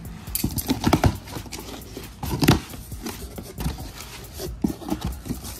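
Irregular knocks, taps and rustles of a cardboard box and its packaging being handled and opened, with a sharper knock about a second in and another about two and a half seconds in.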